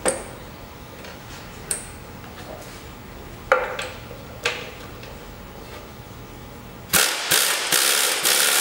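A few sharp metallic clicks and knocks of a tool on an old bolt. Near the end a pneumatic air tool runs hard in short pulsing bursts, driving a seized, decades-old fastener on a vintage motorcycle frame.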